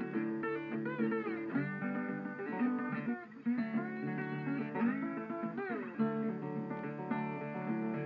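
Background music: a guitar piece, with notes sliding and bending in the melody over a steady lower accompaniment.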